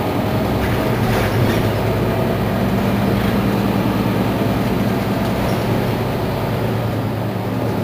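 Mercedes-Benz Citaro C2 city bus running, a steady low engine hum with some rattling.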